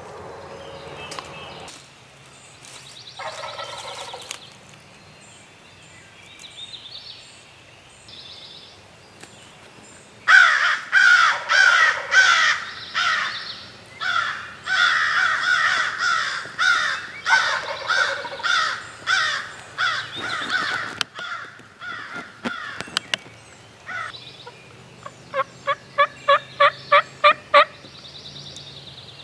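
Wild turkey gobbling loudly, a long run of rattling gobble notes through the middle. Near the end comes a series of about eight short, evenly spaced yelps.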